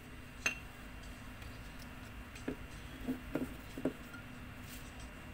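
A paintbrush clinking and knocking against a ceramic mug and plate: one sharp, ringing clink about half a second in, then four soft knocks over the next few seconds, over a steady low hum.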